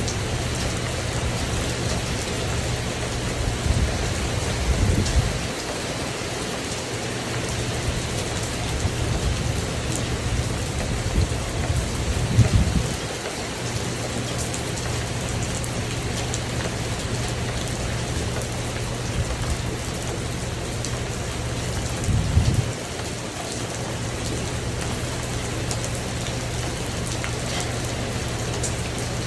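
Steady rain falling on a tin porch roof, an even pattering hiss throughout. Three brief low rumbles swell up and fade: once about four seconds in, once near the middle and once about three-quarters through.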